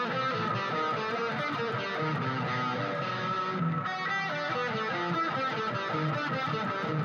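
Guitar music: a run of plucked notes with strummed chords, playing continuously.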